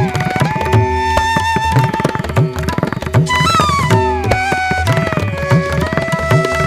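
Indian-style instrumental background music: a held melody that glides between notes over a steady tabla rhythm, the low drum strokes sliding up in pitch.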